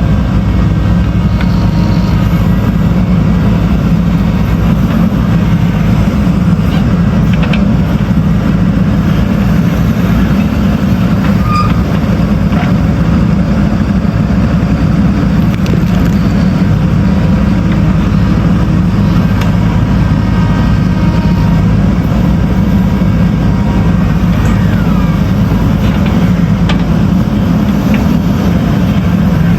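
Diesel engine of a JCB backhoe loader running steadily under load, a constant low hum with a few faint clicks and knocks over it.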